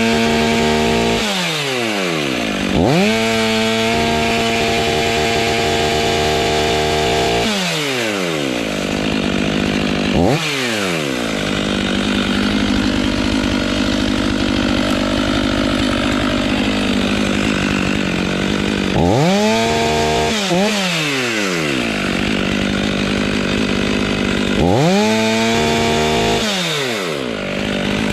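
Chainsaw engine revving up to full throttle in repeated bursts, several seconds long, and dropping back to a lower idle between them.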